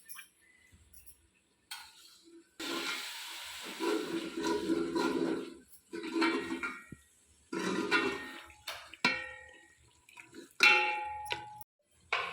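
Water pouring and splashing in several separate bursts of a second or two each, with a short metallic ring twice.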